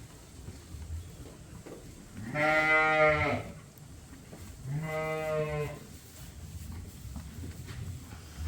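Sheep bleating: two long calls about two seconds apart, the first louder.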